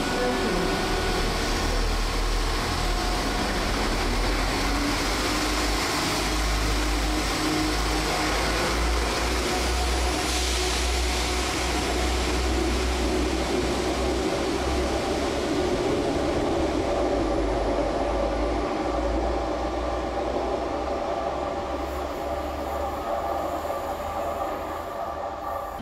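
Class 172 Turbostar diesel multiple unit's engines running as the train pulls away from the platform, a steady rumble that fades over the last several seconds as it leaves.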